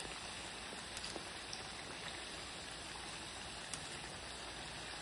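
Papdi (flat rounds of dough) deep-frying in hot oil in a steel kadhai: a steady sizzle with a few small pops.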